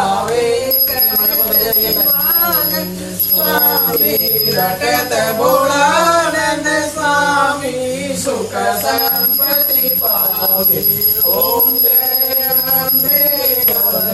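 Devotional aarti singing over a steady low drone, with a puja hand bell ringing on and off through it.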